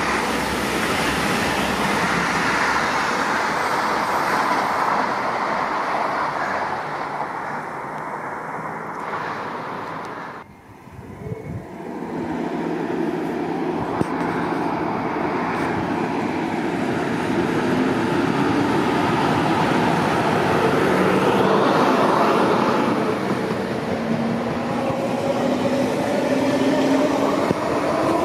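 An ICE high-speed train running past. About ten seconds in, after a brief drop, a Class 143 electric locomotive and its S-Bahn x-Wagen coaches run along the platform, with whining tones that rise in pitch near the end.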